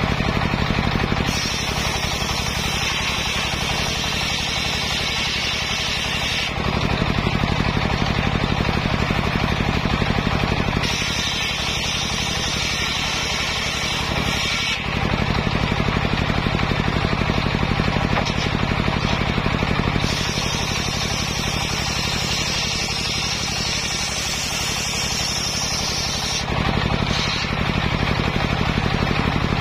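Large table-mounted circular saw ripping sengon (albizia) timber into 5×5 cm strips. Under it runs a steady drone from the saw's drive. The sound changes every four to six seconds as each pass through the wood begins and ends.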